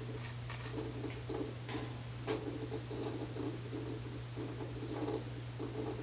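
Whirlpool top-load washing machine running its calibration self-test: a steady low hum with irregular rattling and scattered clicks as it works through its parts (motor, spin pump, coupler) one by one.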